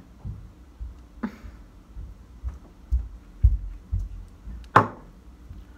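Handling noise as a foundation pump bottle is worked onto the back of a hand: a run of soft low thumps and two sharp clicks, a faint one about a second in and a louder one near the end.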